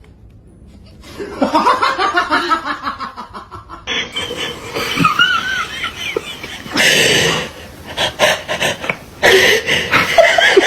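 People laughing in fits after a quiet first second, dying down around 8 seconds in and breaking out loudly again about 9 seconds in.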